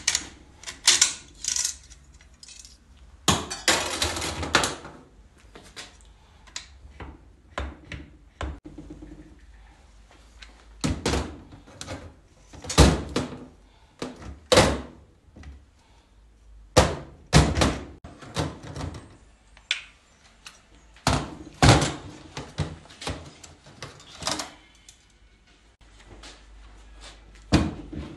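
Steel clutch drums and planetary gear sets of a BMW 6HP19 automatic transmission being pulled apart and set down on a stainless steel bench: a string of separate metal clunks and knocks, with a longer rattling clatter about three to four seconds in.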